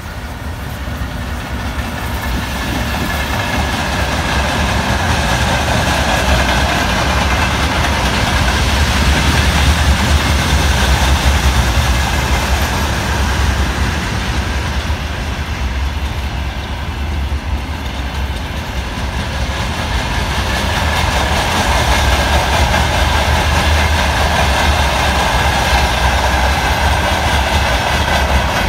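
Freight train hauled by a BKG1 electric locomotive passing at close range: a continuous rumble and rattle of wagon wheels on the rails. It swells over the first few seconds and stays loud, easing a little midway before rising again.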